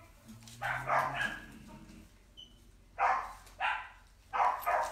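A dog barking, several separate barks with short pauses between them.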